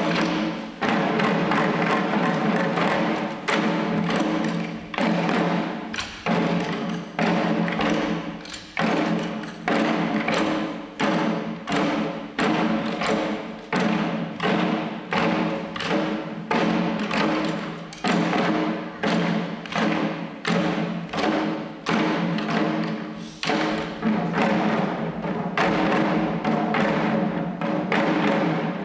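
Shishi-odori deer dancers beating the small drums slung at their chests in a steady, repeated rhythm, over a steady held tone beneath the drumming.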